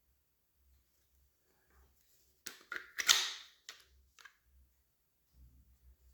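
A quick run of clicks and knocks as parts of a magfed paintball marker, its magwell, are handled, loudest about three seconds in, with faint handling noise near the end.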